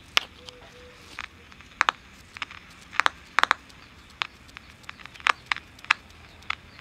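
Sokol 310 AM transistor radio giving out a low hiss with irregular crackles and pops while its tuning dial is turned, no station coming in. This sounds the same as before the band-switch bypass, which the repairer takes as the sign of a bad tuning capacitor.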